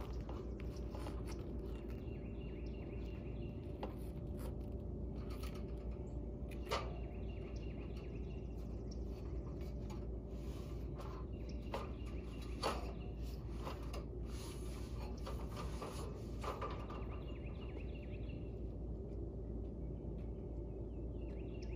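A steady low rumble, with scattered sharp knocks and taps from roofers handling materials on a shingled roof, loudest about 7 and 13 seconds in.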